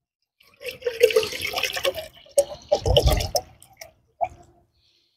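Water poured from a bottle into a stainless steel camp cup, splashing and filling in two spells of a second or so each, followed by a couple of short drips.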